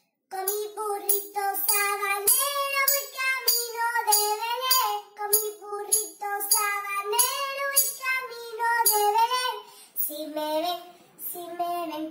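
A young girl singing a tune, with a steady percussive tap under it, about one beat every half second.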